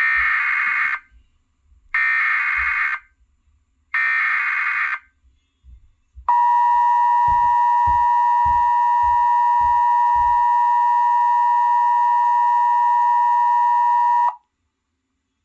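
Emergency Alert System SAME header: three one-second bursts of warbling digital data about a second apart. They are followed by the EAS two-tone attention signal, a steady dual-tone alarm held for about eight seconds before it cuts off. The header encodes the alert, here a Practice/Demo Warning, and the attention signal announces that the voice message follows.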